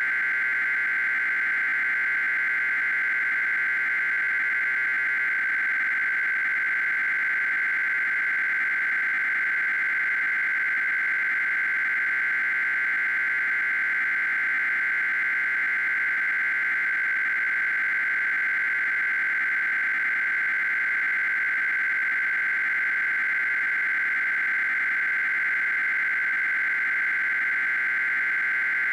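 Emergency Alert System SAME header data tones: an unbroken, steady high warble of two rapidly alternating tones. The header runs very long because it codes the alert for every county in the United States.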